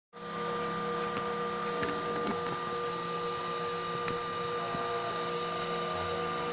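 3D printer running, a steady mechanical hum made of several held tones with a few faint clicks.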